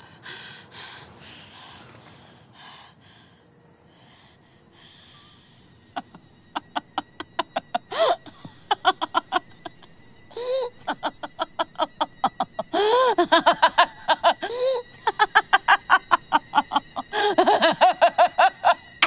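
A woman's voice without words: faint heavy breathing at first, then from about six seconds a rapid, stuttering cackle in repeated bursts, loudest near the end.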